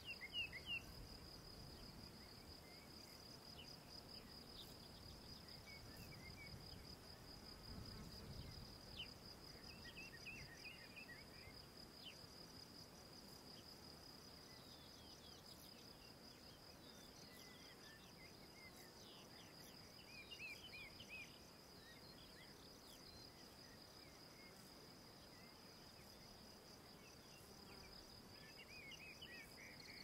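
Faint, steady, rapidly pulsing trill of cicadas, with short bursts of small-bird chirps at the start, about ten seconds in, about twenty seconds in and near the end.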